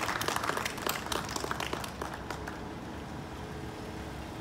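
Audience applauding, a dense patter of claps that thins out and stops about two and a half seconds in, leaving a low steady background rumble.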